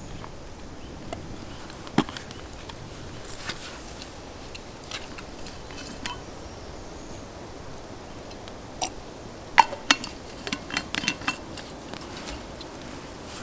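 Scattered sharp clicks and knocks over faint steady background noise: a single loud one about two seconds in, and a quick run of them later on.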